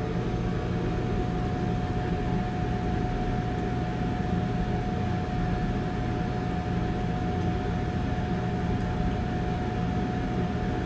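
Steady mechanical hum of commercial kitchen equipment, with a thin constant whine over a low drone and a few faint light ticks.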